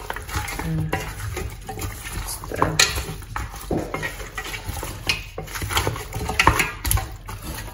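Wooden spatula stirring raw goat-head pieces with onions and pepper in a stainless steel pressure cooker pot: irregular wet squelches, knocks and scrapes against the metal.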